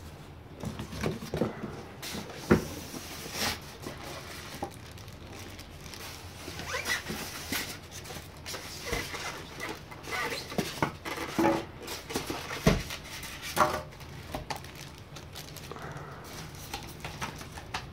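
Unboxing handling: a clear plastic wrap crinkling, and paper and cardboard packaging rustling, with scattered knocks as the scale is moved about in its box. The two sharpest knocks come about two and a half seconds in and a little past the middle.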